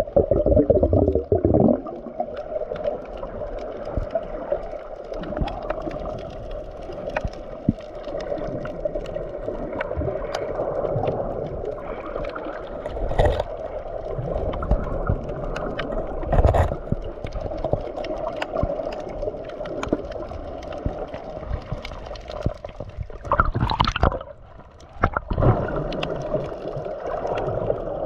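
Seawater gurgling and sloshing, with scattered clicks and a few sharp knocks, and a louder rush of water near the end.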